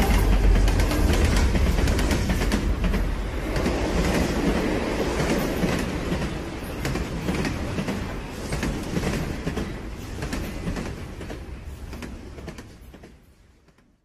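Loud, steady rumbling clatter with many sharp clicks over a deep low rumble. It fades gradually and dies away to silence near the end.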